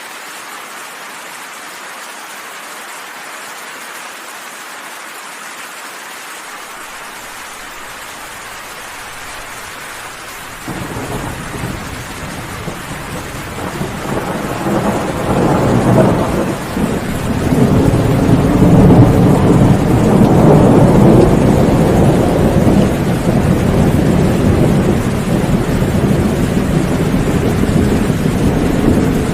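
Steady rain falling, then about a third of the way in a long roll of thunder breaks in suddenly, builds for several seconds to a deep rumble and rolls on under the rain.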